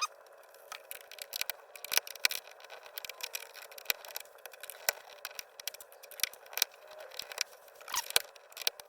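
Screwdriver turning a screw into a kayak to fix a gear track mount: irregular small clicks and light scraping.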